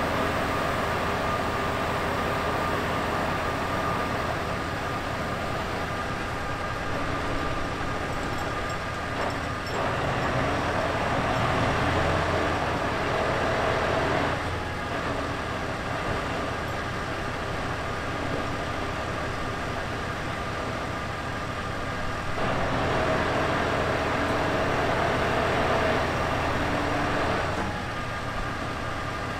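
Scania R650's 16-litre V8 diesel running steadily while it drives the Copma 1150 loader crane's hydraulics. Twice it revs up for about four to five seconds as the crane boom is unfolded and extended, then drops back.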